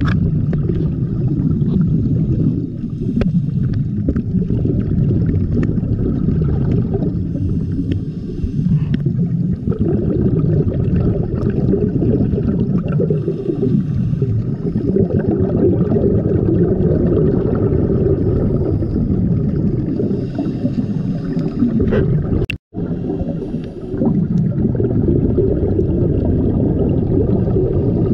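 Muffled underwater rumble and gurgling of scuba divers' exhaust bubbles, heard through a camera's waterproof housing. It cuts out for a split second about three-quarters of the way through.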